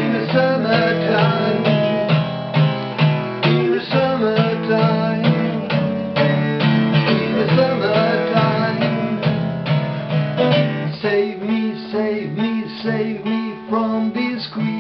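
Acoustic guitar strummed in a steady rhythm, with a man's voice singing over parts of it.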